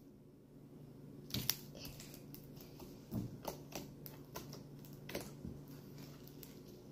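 Sticky homemade slime being handled, giving short, irregular clicks and pops as it pulls and snaps off the hands.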